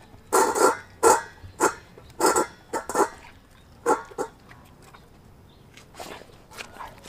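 A German Shepherd–Pitbull mix dog chewing raw meat and bone from a steel bowl: wet crunching chews about two a second. They stop about four seconds in, and a few faint sounds follow near the end.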